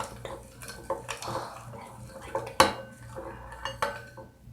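A utensil stirring slime mixture in a bowl, scraping and clinking against the bowl, with a sharp knock about two and a half seconds in.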